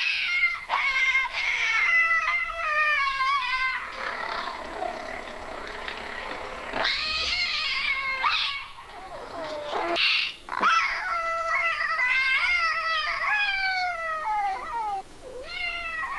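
Cat yowling: long, wavering, pitched cries repeated one after another, with a rougher, noisier stretch between about four and seven seconds in.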